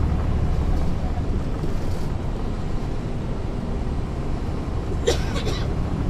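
Caterpillar C13 ACERT diesel engine of a NABI 40-SFW transit bus running with a steady low rumble, heard inside the cabin from the rear seats near the engine. About five seconds in, a brief clattering rattle is heard.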